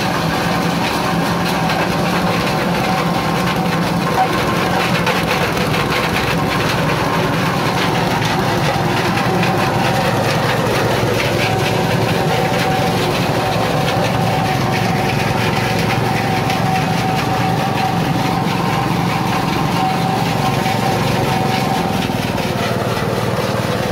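Coconut-husk shredding machine for making cocofiber and cocopeat, running steadily. Its small gasoline engine drives the grinder while husk is being shredded.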